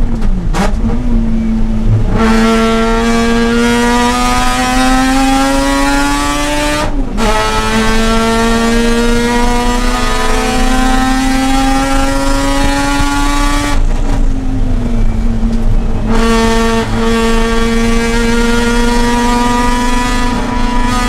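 Mazda RX-8's two-rotor rotary engine pulling hard on track, its pitch climbing slowly. There is a brief dip about seven seconds in, then a longer lift around fourteen seconds where the note falls and thins, before it climbs again.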